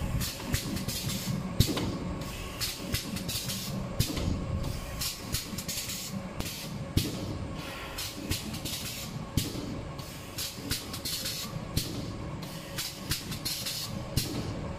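Automatic alcohol pad packing machine running: a steady hum under frequent clicks and clacks at an uneven rhythm, with repeated short bursts of hiss.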